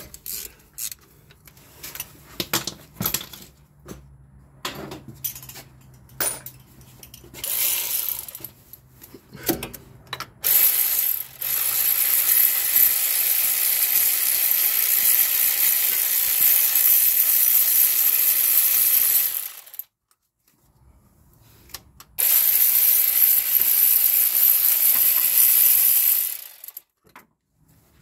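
Ratchet wrench on an extension backing out the bottom 12 mm bolt of a Honda V6 oil filter adapter housing: scattered clicks for the first ten seconds or so, then a long, steady run of dense ratcheting, a short pause, and a second, shorter run.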